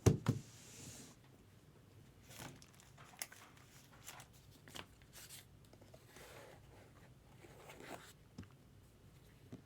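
Trading-card packaging being opened by hand: a knock right at the start, then scattered small clicks with soft tearing and rustling.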